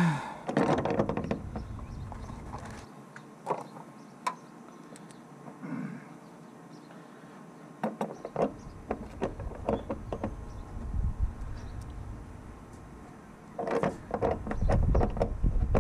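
Scattered clicks and light knocks of hands working small metal parts, a chrome fuel pressure regulator with gauge and brass hose barbs, on the car's inner fender. Near the end the clicks come quicker, with a low rumble.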